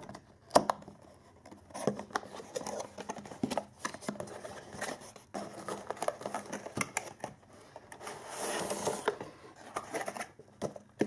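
Cardboard product box being opened and handled: scattered taps, scrapes and clicks of paperboard as the lid flap is lifted and the inner tray is taken out, with a longer rustling scrape about eight seconds in.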